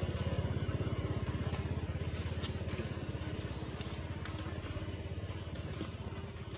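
A small engine running with a fast, even throb that slowly fades, with a couple of short high chirps on top.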